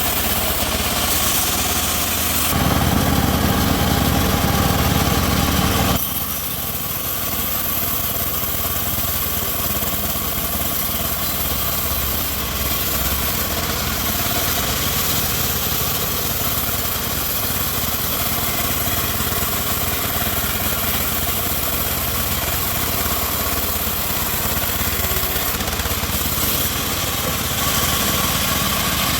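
Home-built bandsaw sawmill running steadily with a steady engine-like drone. It is louder and deeper for a few seconds near the start, then settles to an even, slightly quieter run.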